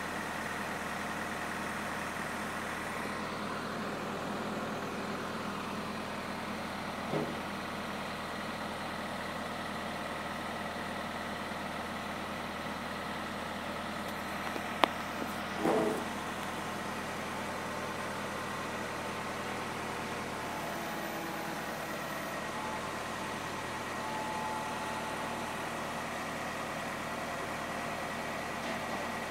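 Engine of a Mitsubishi crane truck idling steadily, with two short knocks partway through.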